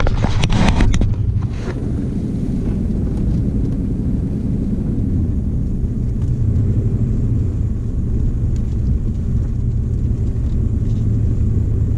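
Steady low rumble of a vehicle's engine and tyres driving over beach sand, heard from inside the cabin. A few knocks and rattles in the first couple of seconds.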